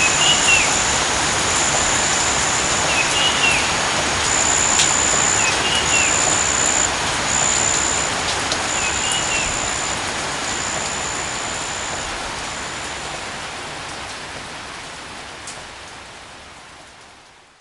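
Steady rain falling, a dense hiss, with a high thin whine that comes and goes and four short chirps scattered through it. The whole sound fades out gradually over the last several seconds to silence.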